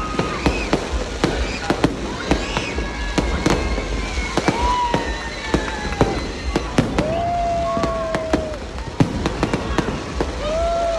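Fireworks display: a rapid, irregular string of sharp bangs and crackles, with several long whistles that hold a pitch and then slide down.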